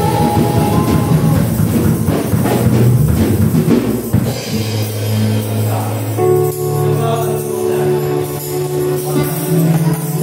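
Live worship band playing: drum kit, singing and shaken tambourines. About four seconds in the rhythm drops away and the band holds long sustained chords.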